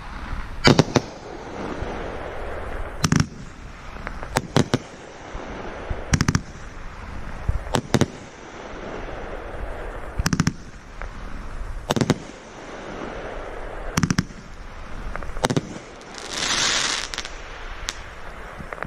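FireHawk 'The Next Big Thing' 20-shot, 500-gram firework cake firing shot after shot: a sharp bang about every one and a half to two seconds, some doubled, with crackling between them. A loud hissing rush comes near the end.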